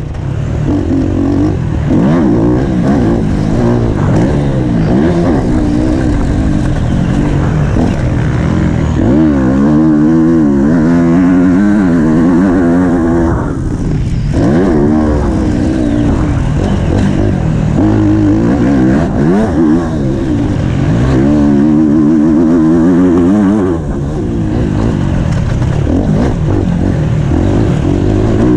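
Motocross bike engine heard from a camera mounted on the bike, revving up and falling back again and again as the rider works the throttle through the gears around a dirt track, with short drops in revs about fourteen seconds in and again near twenty-four seconds.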